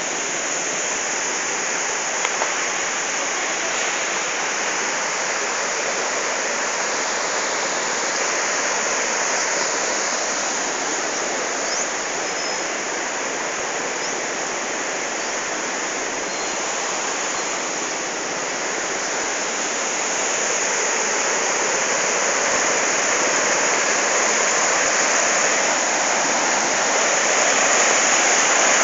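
A swollen, muddy river in flash flood rushing past: a steady, unbroken noise of turbulent water that grows a little louder near the end.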